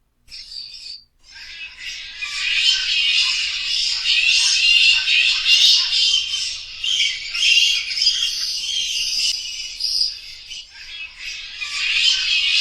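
Many bats squeaking and chittering at once, a dense high-pitched chorus that starts about a quarter second in and thins briefly just after a second in and again near the end.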